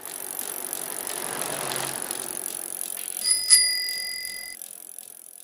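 A bicycle whirring past, then a single ring of a bicycle bell a little over three seconds in that rings on for about a second and fades.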